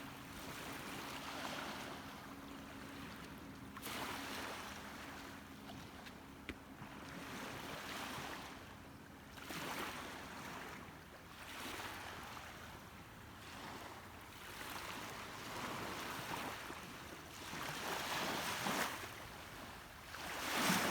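Sea waves washing in swells that rise and fall every couple of seconds, with wind on the microphone.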